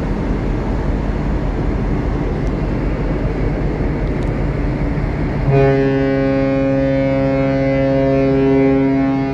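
Steady wind and machinery rumble on deck, then a little over halfway through a ship's horn starts a long, steady blast that is still sounding at the end.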